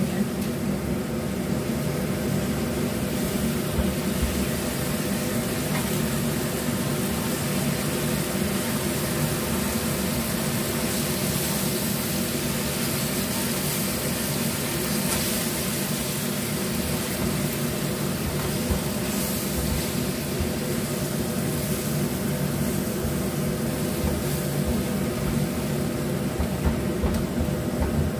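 Steady motor hum made of several low tones, with a spatula stirring breaded green mussels in sauce in a wok.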